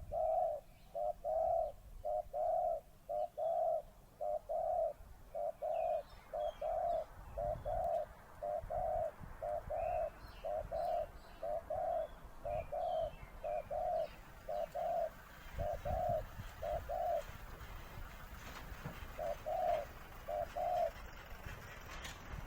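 A dove cooing in a long, quick run of low coos, evenly spaced and often paired, that pauses near the end before two more. Faint higher chirps of small birds are heard behind it.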